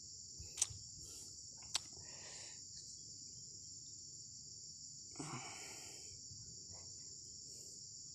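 Steady high-pitched chorus of insects. Two faint sharp clicks come in the first two seconds, and a brief soft noise about five seconds in.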